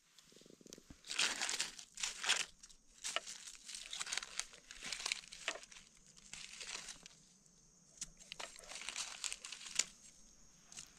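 Dry fallen leaves crackling and rustling in irregular bursts as gloved hands and a knife dig through the leaf litter to cut out a mushroom.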